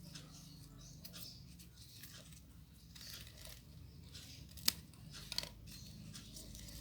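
Scissors snipping during crafting, with small handling clicks and one sharper click about two-thirds of the way through.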